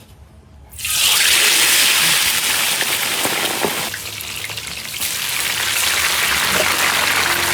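Loud sizzling of food dropped into hot oil in a large wok. It starts suddenly about a second in, eases a little around the middle, then carries on.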